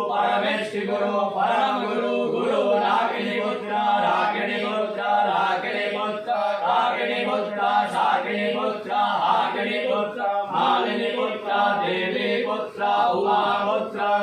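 Hindu devotional chanting, voices intoning a mantra in a steady, repeating rhythm over a continuous low drone.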